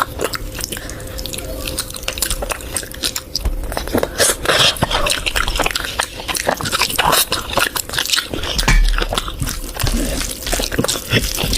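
Wet chewing and lip-smacking of someone eating curry: a dense, irregular run of small wet clicks and smacks.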